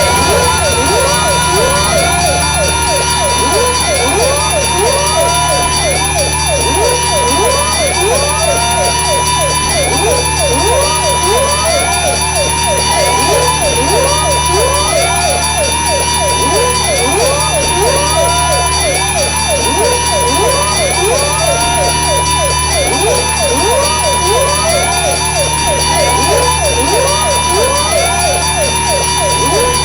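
Looped synthetic sound effect: several overlapping rising pitch sweeps repeat over and over like a chaotic siren, about once every second or so. Underneath runs a steady low buzz, where drum beats at 2741 BPM run together too fast to be heard as separate hits.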